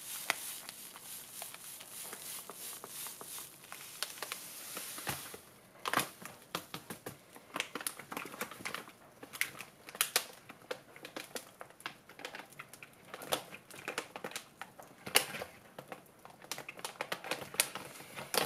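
Seasoning granules shaken from a sprinkler-top container onto cut cucumbers, a steady fine hiss that stops abruptly about five seconds in. After that come irregular clicks and crinkles of a plastic packet being handled.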